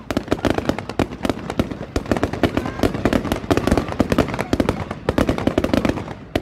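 Fireworks display going off: a fast, unbroken barrage of bangs and crackles from many shells bursting at once, easing briefly just before the end.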